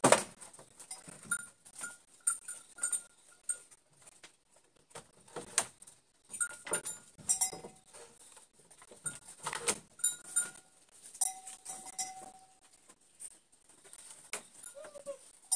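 Goats bleating, with many sharp clicks and knocks scattered throughout.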